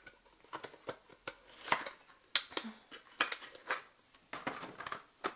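Irregular clicks, taps and crinkles of cosmetic products and their plastic packaging being handled, with a few louder snaps about two seconds in.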